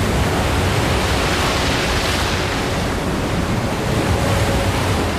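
Sea waves breaking close by: a steady rush of surf and foaming water.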